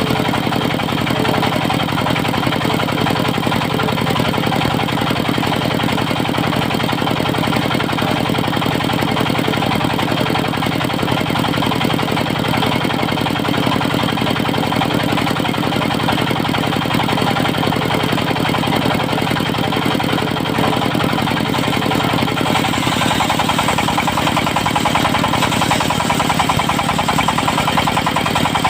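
Diesel-driven circular sawmill with a 70 cm saw blade running steadily. About 22 seconds in, the lower part of the sound drops and a higher hiss comes up.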